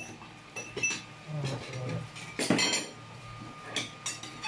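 Plates and cutlery clinking and clattering on a table as food is served and plates are set down, in several short clinks with the loudest clatter about two and a half seconds in.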